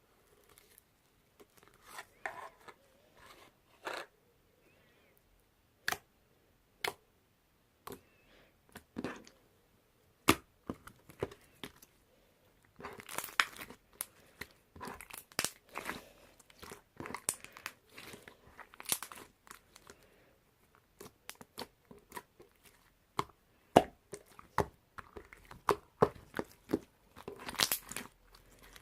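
Slime being squished and stretched by hand, giving irregular sticky pops and crackles that are sparse at first and come thick and fast from about halfway through.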